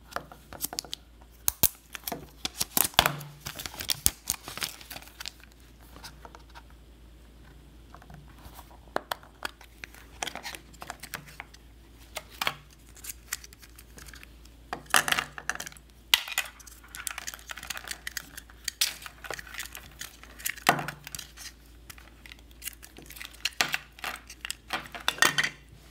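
Apple EarPods' hard clear plastic case and inner plastic cord holder being pried open and handled: irregular clicks, snaps and crinkles of plastic, coming in clusters.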